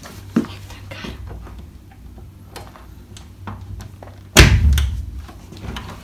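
Wooden door being unlatched by hand: a sharp click of its brass slide bolt just after the start and small knocks and rattles, then one loud thump of the door about four and a half seconds in.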